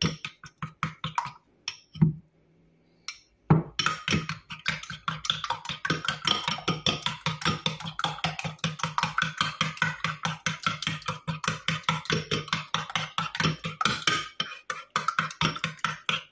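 Fork beating raw eggs and mashed plantain in a ceramic bowl: a few separate clicks at first, then from about three and a half seconds in a steady fast clicking of the metal against the bowl, about four or five strokes a second.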